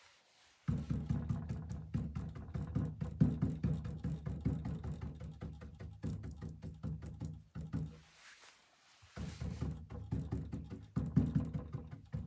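Background music with a beat, stopping for about a second and a half partway through.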